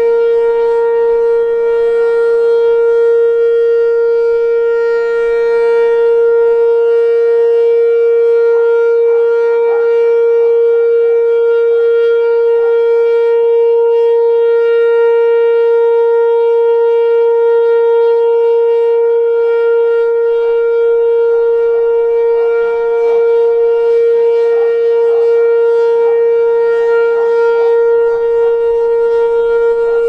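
Whelen Vortex R4 electronic rotating warning siren sounding its steady Alert tone, one unbroken pitch held throughout as the head turns.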